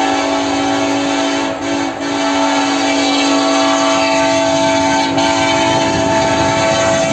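KCSM diesel locomotive's air horn sounding a long, loud chord of several notes, broken by brief dips about one and a half and two seconds in and again near five seconds.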